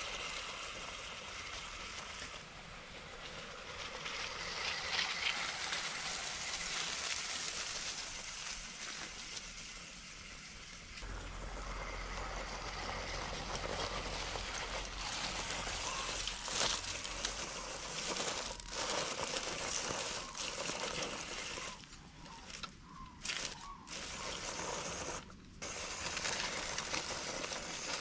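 Steady outdoor hiss with the rustle and crunch of dry leaves and loose stones as a WPL B36 scale RC crawler truck drives over a forest trail and up a rocky slope. A low rumble joins about eleven seconds in, and the sound dips out briefly several times near the end.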